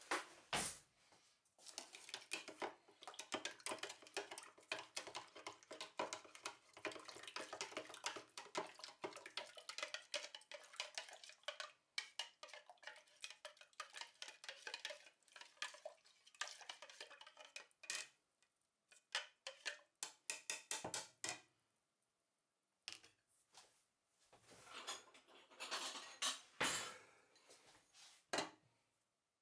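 A spoon stirring yeast, sugar and lukewarm water in a plastic beaker: a long, rapid run of clinks and scrapes against the cup's sides, stopping about 21 seconds in. Near the end a few louder clacks as a porcelain saucer is handled over the cup.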